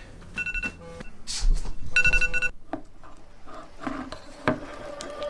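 Smartphone alarm beeping in short rapid bursts, twice, then stopping. Rustling between the bursts and a single soft tap near the end.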